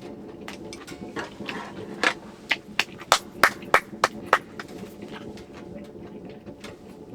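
Close-up chewing of a lettuce and perilla-leaf wrap of thick-sliced raw yellowtail: a run of about eight crisp crunches, roughly three a second, over a steady low hum.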